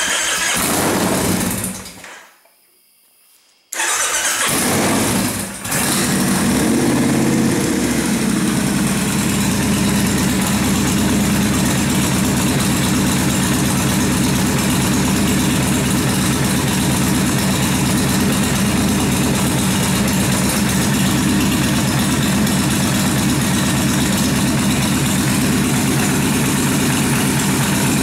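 Freshly rebuilt Kawasaki Vulcan 1600 V-twin engine running briefly, then dying. It is restarted about four seconds in, stumbles once and settles into a steady idle. The engine doesn't want to idle on its own after the rebuild.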